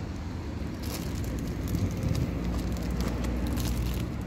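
Crackling, rustling handling noise close to the microphone, a quick run of small clicks starting about a second in, over a steady low background rumble.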